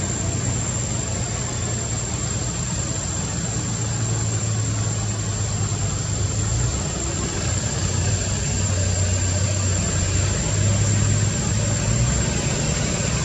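A vehicle engine idling with a steady low hum, under a thin, unbroken high-pitched whine.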